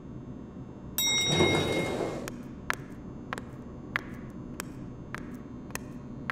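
A door opens with a metallic clank and a short rush of noise about a second in, followed by a steady series of footsteps, roughly three steps every two seconds.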